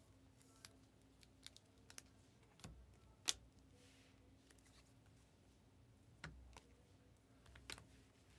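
Faint, scattered clicks and ticks of glossy Panini Prizm trading cards being handled and slid through in the hands, one sharper click a little over three seconds in, over a low steady hum.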